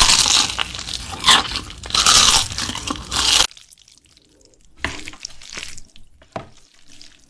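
Loud, close crunching of crispy food being bitten and chewed, as in ASMR eating. It stops abruptly about three and a half seconds in, and quieter wet chewing and mouth clicks follow.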